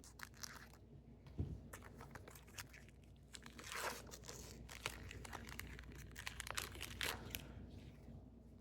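Faint tearing and crinkling of a trading card pack's wrapper as it is ripped open, with scattered crackles and a soft thump about a second and a half in.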